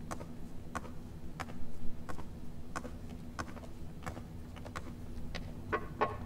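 Footsteps of leather dress shoes on a hard office floor, a steady walking pace of about three steps every two seconds, over a low steady room hum.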